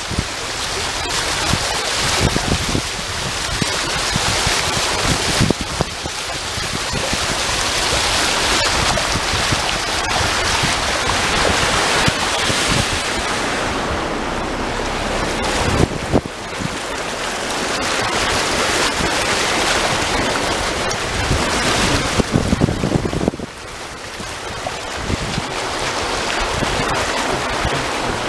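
Typhoon wind gusting hard against the microphone: a loud rushing noise that swells and eases in surges, with low buffeting thuds, dropping back sharply a little before the end.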